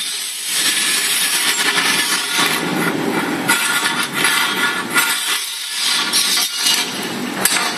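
Loud rough scraping and rustling with a few knocks, swelling and dipping unevenly, as a thin aluminium channel-letter strip is handled and slid over the metal table of a laser welding machine's fixture.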